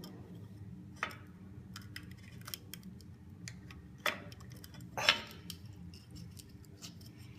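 Small metal clicks and scrapes of a sharp hand tool prying a hardened rubber seal off a metal gearbox part, with sharper clinks about one, four and five seconds in.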